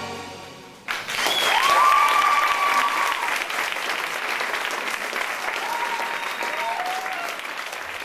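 The performance music fades out, and about a second in audience applause breaks out suddenly and carries on steadily, with a few long cheering calls rising over it.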